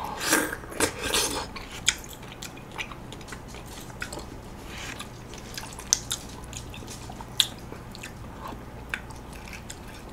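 Metal spoon scooping the flesh of a very cold golden kiwi out of its skin, with soft wet mouth sounds of eating in the first second or so, then scattered sharp clicks of the spoon.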